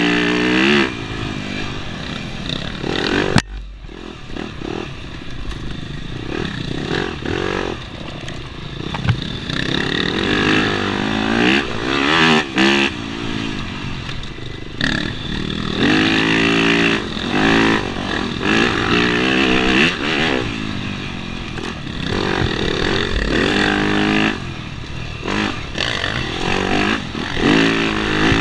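Yamaha dirt bike engine heard from on board, revving up and down over and over as the rider accelerates, shifts and backs off along a dirt trail.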